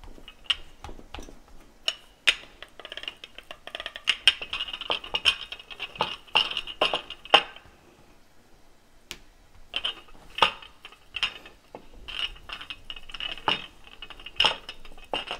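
Rolling pin worked back and forth over dough on a board, giving sharp clacks and a rattling whir in two spells with a short pause between.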